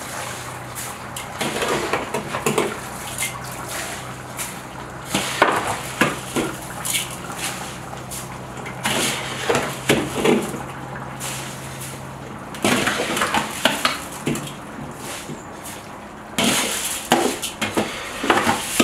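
Soaked rice being scooped out of a steel bowl and poured into a large kazan over the plov base. It comes in irregular rustling, pattering pours, with scrapes and clinks of the scoop against the bowl.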